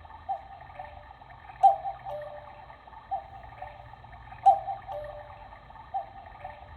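Quartz cuckoo clock calling its two-note cuckoo, high then low, over and over as it counts the hour, a call about every second and a half. A sharp mechanical click comes with every other call.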